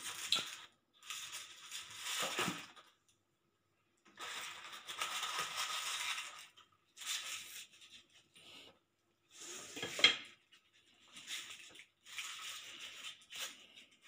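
Cardboard box and paper packaging rustling as hands unpack small brass shower fittings, in short spells with pauses between them, with one sharp knock about ten seconds in.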